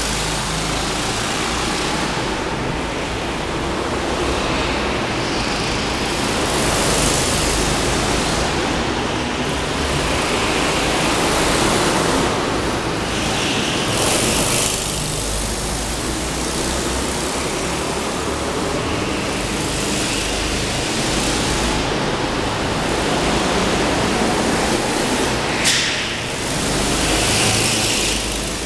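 Go-kart engines running as karts lap an indoor track, the sound swelling and fading every few seconds as karts come past and drive away, with faint rising and falling engine pitch. A single sharp click near the end.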